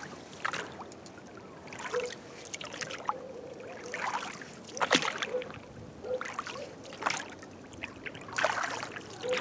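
Oars stroking through the water as a small boat is rowed, with a splash every second or so.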